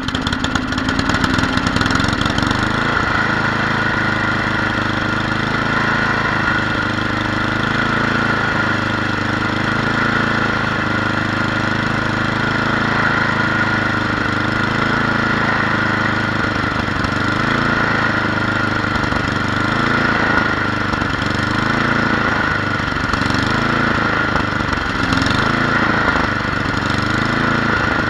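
Tecumseh HMSK80 single-cylinder snowblower engine running steadily. From about halfway, its pitch rises and falls every couple of seconds.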